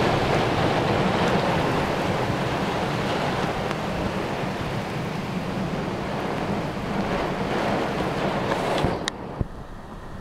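Heavy thunderstorm rain and strong wind gusts making a loud, steady rushing noise. It drops away suddenly about nine seconds in, with a couple of sharp clicks near the end.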